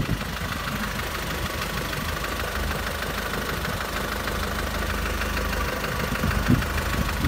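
Diesel SUV engine idling steadily: a low rumble with a fine, rapid ticking clatter over it.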